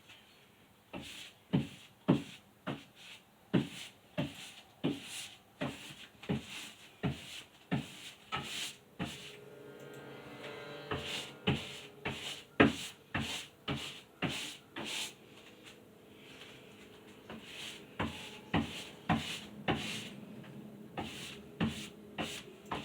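Paint roller stroking back and forth on a wall, making a rhythmic rubbing swish about once every two-thirds of a second, with a few pauses.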